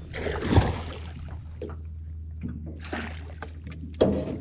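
Hooked largemouth bass splashing at the water's surface beside an aluminium boat, then a landing net scooped into the water under it. Splashes come about half a second in, briefly around three seconds in, and again about four seconds in, over a low steady hum.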